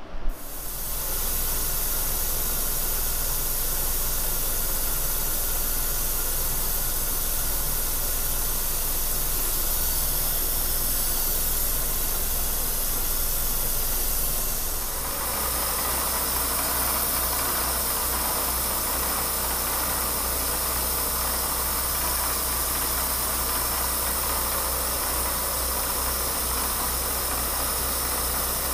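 Vertical milling machine running, its end mill cutting a keyway into a small shaft, a steady hissing machining noise with a low hum. About halfway through the sound shifts and becomes brighter, as the cut moves on.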